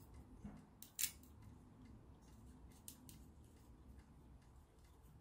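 Faint clicks and small cracks of a wooden barbecue skewer being split lengthwise by hand, with one sharper crack about a second in.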